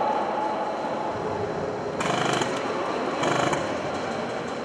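Airsoft guns firing rapid automatic bursts, two short bursts about two and three seconds in, over a steady background clatter.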